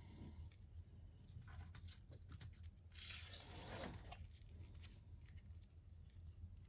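Faint handling noises: scattered small clicks and a brief rustling scrape about three seconds in, over a low steady hum.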